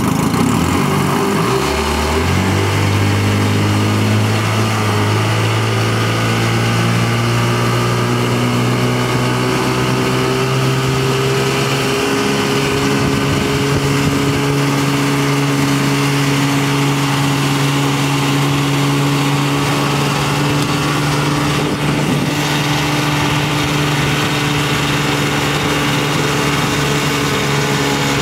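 A boat's outboard motor throttling up over the first couple of seconds, its pitch climbing as it pulls a rider out of the water, then running steadily at towing speed, with a slight further rise in pitch about twelve seconds in.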